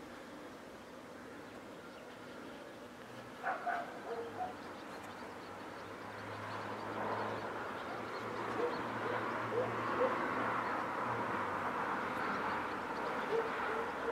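Outdoor ambience: short, scattered animal calls, a few a second at times, over a hiss that grows louder about halfway through, with a faint low hum in the middle.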